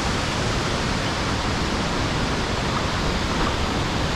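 Steady, loud rush of water tumbling over the Krka river's cascades.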